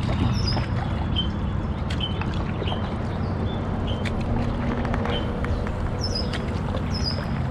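Small birds chirping, short high calls repeating every second or so, over a steady low rumble.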